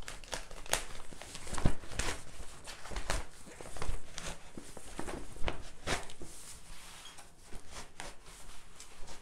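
Several sheets of newsprint being torn at once from the glued binding of a pad: a run of short rips and paper crackles, the sheets coming away with some difficulty.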